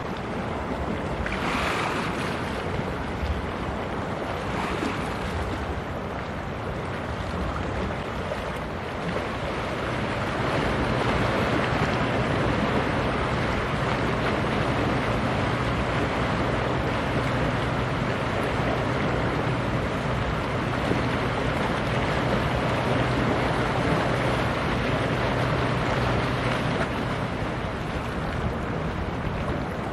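Passing cargo ship: a low steady engine hum comes in about a third of the way through and fades near the end, over wind on the microphone and water noise.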